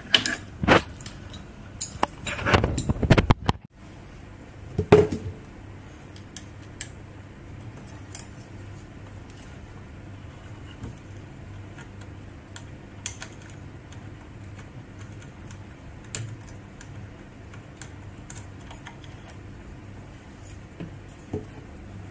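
Small metal scooter-suspension parts (brackets, bolts and spacers) clinking and knocking as they are handled, with a cluster of knocks in the first five seconds and only sparse light clicks after, over a faint steady low hum.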